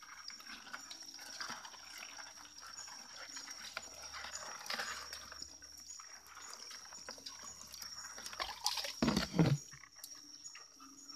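Steps wading through wet mangrove mud and shallow water, with small splashes and drips, and a louder burst of sloshing and knocking about nine seconds in. A steady high, thin whine runs underneath.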